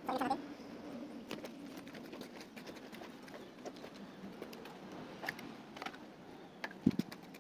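Faint scattered clicks and gritty scraping of a gloved hand mixing a thick cement-and-sand textured paint in a plastic bucket, with one louder knock near the end.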